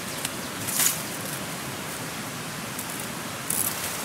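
Leafy plant stems rustling briefly as they are handled, about a second in and again near the end, over a steady outdoor hiss.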